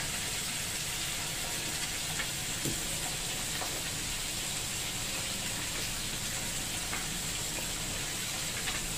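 Chicken liver and gizzard adobo boiling hard in an aluminium pan: a steady bubbling hiss, with a few faint clicks.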